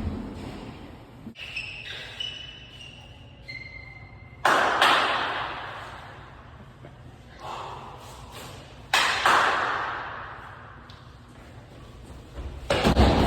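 Loud slams ringing out in a large echoing hall, two big ones about four and a half seconds apart and a smaller one between, each dying away slowly; a few short high squeaks come before the first.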